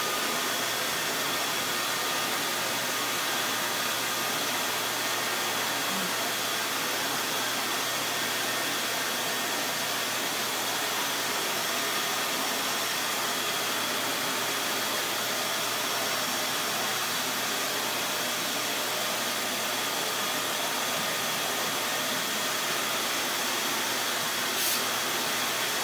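Vacuum cleaner running steadily: an even whooshing noise with a faint high whine over it, and a brief tick near the end.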